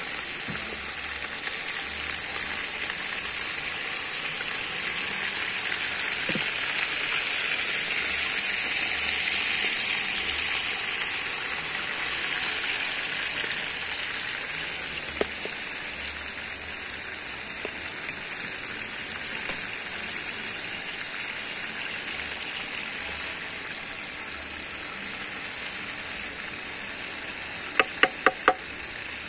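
Chicken stew ingredients sizzling steadily over a wood fire, with a few faint clicks and four quick ringing taps near the end.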